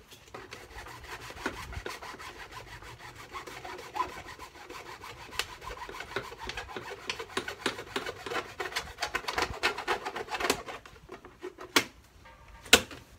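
A ratchet wrench turning a rusted-solid dirt-bike shroud bolt: a long run of rapid rasping clicks as the seized threads grind, with two sharp snaps near the end.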